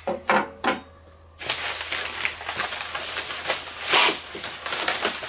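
Butcher paper and aluminium foil crinkling and rustling as hands handle the wrapped smoked pork neck. A few sharp clicks in the first second, then continuous crinkling from about a second and a half in.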